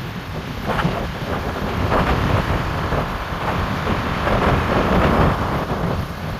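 Wind buffeting the microphone of a camera on a moving bicycle, a loud rushing noise with heavy low rumble that swells and eases.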